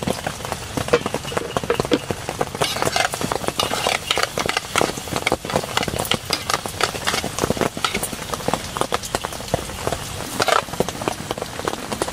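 Heavy rain: dense, irregular drops striking close to the microphone over a steady hiss.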